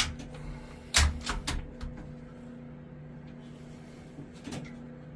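Air rifle shots through a Huma Air Mod50 suppressor: a sharp report at the very start and a louder one about a second in, each followed by a few quieter clicks. A faint click comes near the end.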